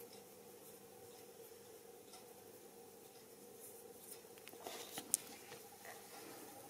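Faint room tone with a low steady hum, then soft rustling and one sharp click about five seconds in as a crocheted wool piece is picked up and handled.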